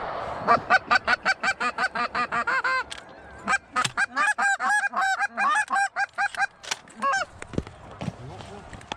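Goose honking: a fast run of honks, about five a second, then a brief pause and a second run of honks.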